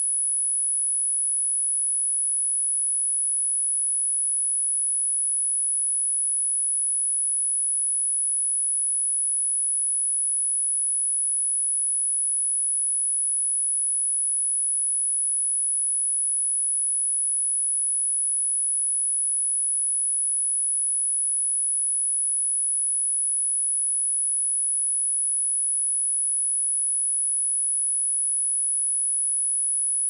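A steady, high-pitched pure sine-wave test tone at about 10 kHz, held at one pitch and level without a break. It is a speaker test and cleaning tone.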